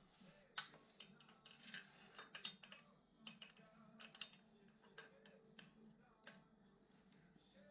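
Faint, irregular clicking and tapping, a few small knocks a second, with no engine running.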